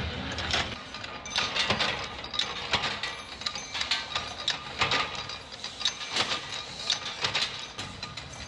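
Workshop metalworking presses clanking: irregular sharp metallic knocks and clicks, one to a few a second, over a steady machine noise.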